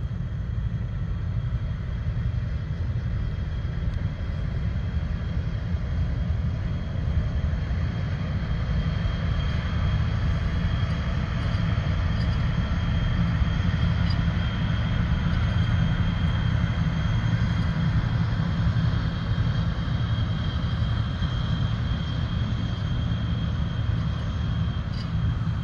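Pontoon shanty boat's outboard motor running steadily under way, a low rumble with a thin steady whine above it and water noise.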